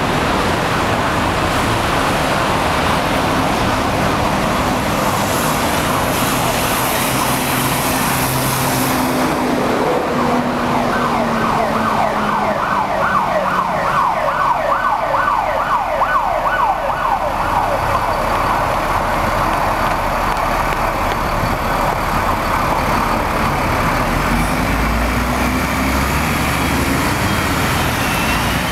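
City road traffic on a wet street, steady tyre and engine noise throughout. Midway an emergency vehicle's siren sounds in a fast yelp, rapid rising sweeps about four a second, for about six seconds.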